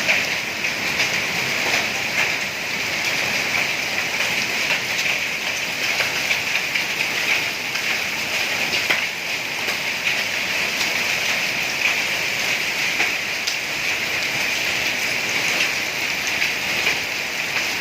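Heavy rain from a summer storm pouring steadily, with many small sharp ticks of drops scattered through it.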